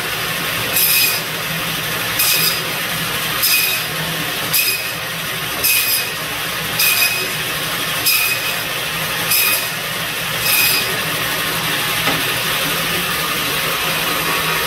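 Biro Model 55 meat band saw running steadily while its blade slices a pork loin into thin chops: nine short cutting sounds, about one a second, each as the loin is pushed through. The cutting stops about 11 seconds in, and the saw keeps running.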